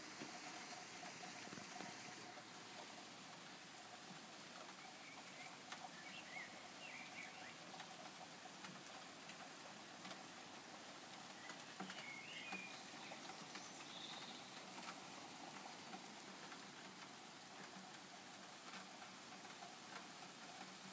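Steady light rain falling, a soft even hiss with the small ticks of drops hitting the balcony. A few faint high chirps come through about six and twelve seconds in.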